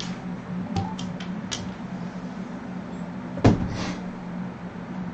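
A few light clicks, then one louder knock about three and a half seconds in, from dice and chips being handled on a craps table, over a steady low hum.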